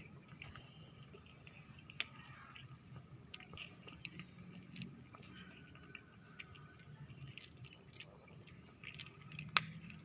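A cat eating: faint chewing with small scattered clicks, and a sharper click about two seconds in and another near the end.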